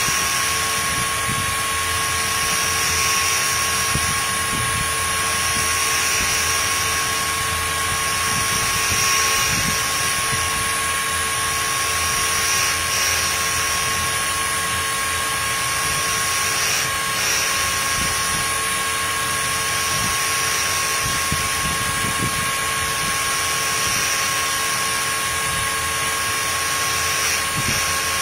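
CNC router spindle running with a steady high whine while its grinding wheel grinds a V-bit held in a rotary tool's collet. A higher hiss swells about every three seconds.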